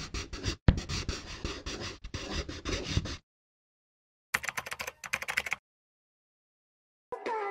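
Rhythmic, percussive intro music with a beat that breaks off about three seconds in, followed by a brief quick run of clicks; pitched tones start near the end.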